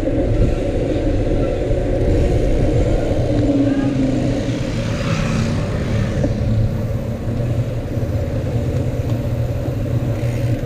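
Wind buffeting the microphone while riding a bicycle: a steady, ragged low rumble.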